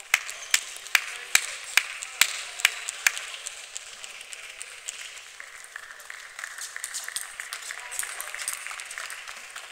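Hand clapping from one person, sharp and evenly spaced at about two and a half claps a second, stopping about three seconds in, after a table tennis rally.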